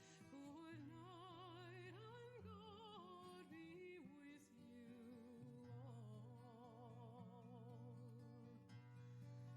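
Quiet background music: a slow song, a voice holding long notes with wide vibrato over sustained low accompaniment, the melody shifting pitch every second or two.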